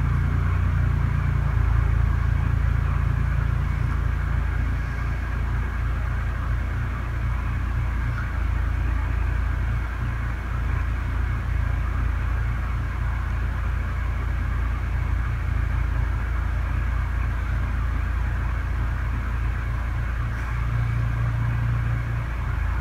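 Steady mechanical hum: a low rumble with an even hiss over it, swelling slightly near the end.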